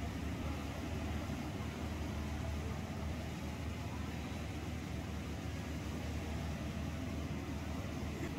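Steady low mechanical hum with an even noise over it, unchanging throughout.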